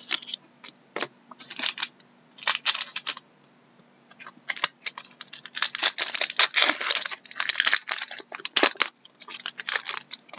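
Hockey trading cards being shuffled and slid against one another in the hands, in short irregular flurries of flicking strokes that are busiest about halfway through.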